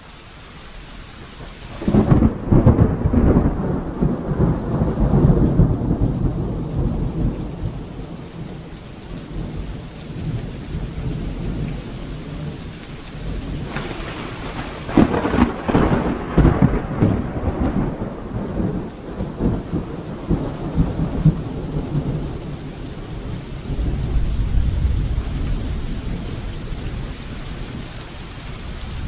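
Thunderstorm: steady rain falling, with a loud thunderclap about two seconds in that rumbles on for several seconds, a second clap about halfway through, and a low rumble of thunder near the end.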